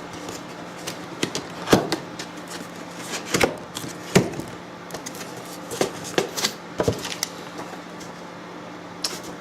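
Cardboard box and packaging being handled and opened: a string of irregular knocks, taps and rustles, over a steady low hum in the room.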